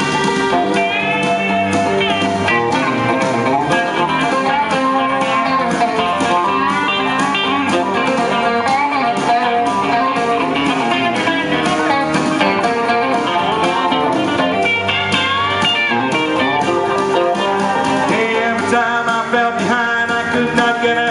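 Instrumental break in a live country-rock song: a Telecaster-style electric guitar plays a lead line with bent notes over a band with a steady drum beat.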